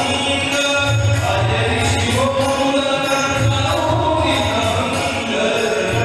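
Hindu devotional chant (bhajan) sung to music with a regular beat.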